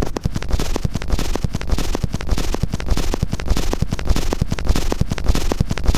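Suspended sheet of plastic drawing paper crackling and popping as it flexes and is handled, picked up by contact microphones and amplified: a dense, irregular run of sharp crackles.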